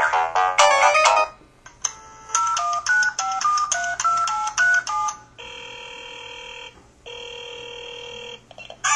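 LG-SD350 mobile phone ringtones and sound effects played one after another: a short chime, then a quick electronic melody of hopping notes, then two long, steady electronic ring tones.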